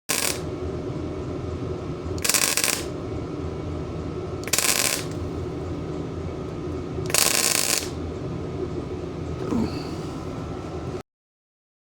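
Bestarc MIG 145 wire-feed welder arc crackling in short bursts of under a second, about every two to three seconds, as stitch welds fill a gap in the race tractor's frame, over a steady hum. The sound cuts off about a second before the end.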